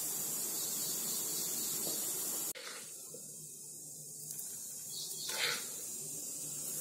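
Steady hiss of the hot pot of sweet pongali, cutting off suddenly about two and a half seconds in to a fainter hiss. A brief soft scrape near the end as a spoonful of pongali is put into a glass bowl.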